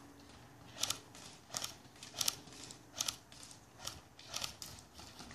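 Airsoft guns firing single shots: sharp snaps at uneven gaps, about seven in all, one every half second to second.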